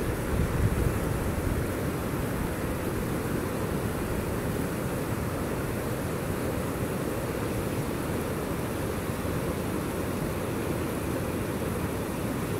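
Steady rushing noise of flash-flood water running through a desert wadi as the flood lessens, with a few gusts of wind buffeting the microphone around the start.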